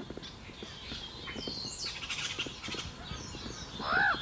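Common raven giving one croaking call near the end, rising and falling in pitch, with higher chirping calls in the background.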